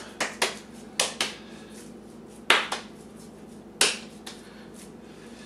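Hands slapping and patting raw ground-beef meatloaf mixture into a rough square: about eight short, sharp slaps at irregular intervals, the loudest about two and a half seconds in.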